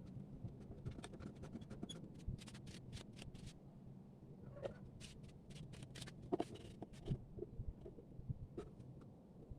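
Light, irregular clicks and taps of tools and parts being handled while a small wood lathe is taken apart, over a low steady hum.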